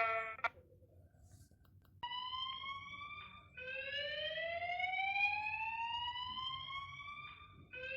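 Warning siren sounding in slow rising sweeps: after a second or so of quiet, a short rising tone, then one long climb in pitch lasting about four seconds that cuts off and starts again low near the end.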